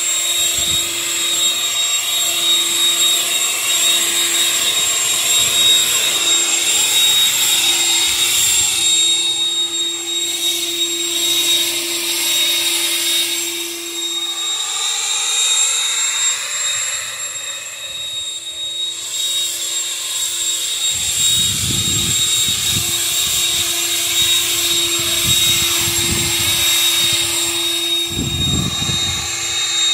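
Harbor Freight Bauer electric leaf blower running steadily with a high whine and a rush of air. It fades and swells as the nozzle is swung around, and low rumbling gusts come in over the last third.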